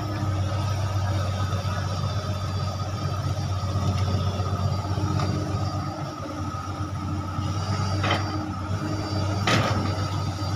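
Diesel engine of a Komatsu long-reach excavator running steadily under load while the arm digs mud, with two short sharp knocks near the end.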